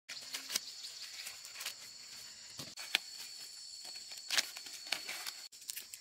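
Dry corn husks and stalks crackling and rustling as ears of corn are snapped off by hand, in irregular sharp crackles, over a steady high insect drone.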